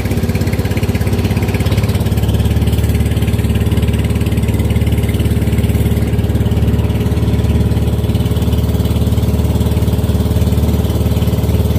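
Outrigger boat's engine running steadily while the boat is underway.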